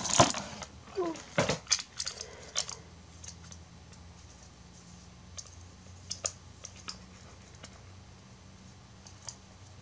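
Plastic packaging crinkling and small plastic figure parts clicking for the first few seconds. After that come scattered faint taps over a low steady hum.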